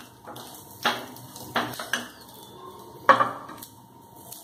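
Slotted spatula clacking against a frying pan while a paratha is pressed down to cook: four sharp clacks, the last and loudest about three seconds in as the spatula is set down on a plate.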